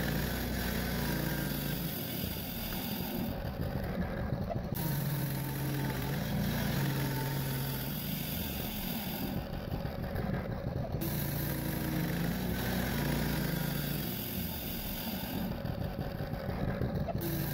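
Harbor Freight portable bandsaw mill's gas engine running steadily at throttle while its band blade rips a fence picket off the cant.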